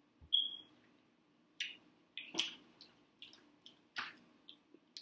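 Close-up eating sounds of seafood: a brief squeaky suck, then a series of short wet smacks and sharp clicks of crab shell being handled.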